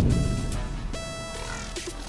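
Background music: a quieter passage of steady electronic tones, between heavier thumping beats.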